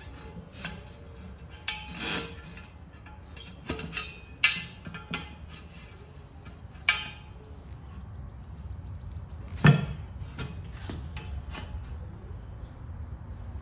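Irregular sharp metal clanks and knocks as a steel tractor wheel rim is worked into a new tire by hand with a maul and a long screwdriver, about eight strikes with the loudest about two-thirds of the way through.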